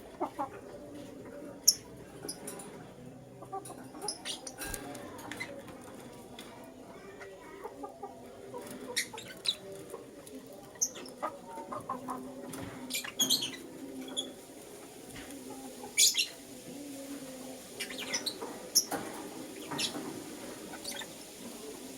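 Young lutino lovebirds chirping: short, sharp, high chirps, scattered singly and in quick little clusters.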